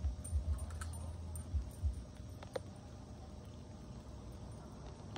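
Outdoor ambience picked up by a phone's microphone. Low rumbling knocks and a few light clicks come in the first two seconds, then a steady faint hiss.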